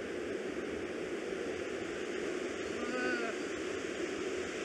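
Steady rushing of a fast, rocky river running over rapids.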